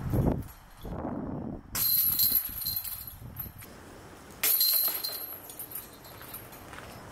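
Disc golf discs striking the chains of a metal basket twice, about two seconds and four and a half seconds in: each hit is a sudden metallic jingle and rattle that fades within a second.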